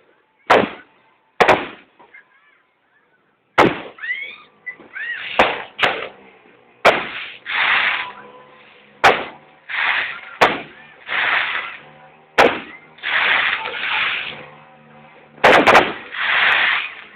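Fireworks going off: a series of sharp bangs at irregular intervals, each followed by a hissing crackle of about a second. There are a few rising whistles about four to five seconds in.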